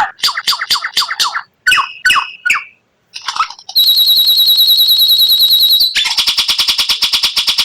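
White-rumped shama (murai batu) song from a masteran recording. It starts with a few varied whistled notes, breaks briefly, then gives a fast high trill on one pitch for about two seconds, followed by a long run of rapid repeated notes: the 'tembakan' (rapid-fire) phrases.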